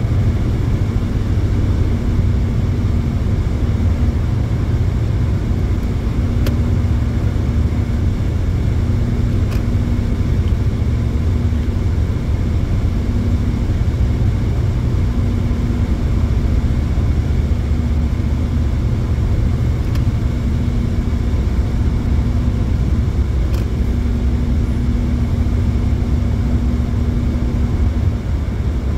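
Steady road and engine noise heard inside a Hyundai Elantra's cabin at highway speed: a continuous low rumble of tyres on the road with a faint hum.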